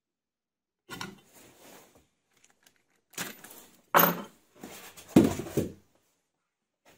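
Handling clatter on a wooden workbench: scrapes, then a sharp knock at about four seconds as a steel bolt is set down, and a louder clatter just after five seconds as the lathe's hinged metal headstock cover is swung open.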